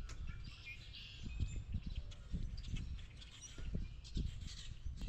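Outdoor ambience: small birds chirping on and off, over a faint, uneven low rumble.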